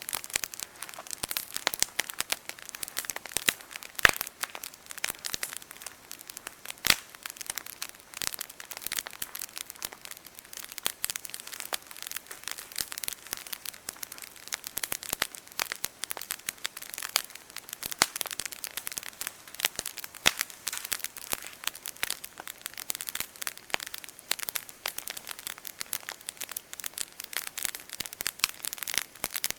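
Wood campfire crackling, a dense run of small snaps with a few sharper pops, the loudest about four seconds in.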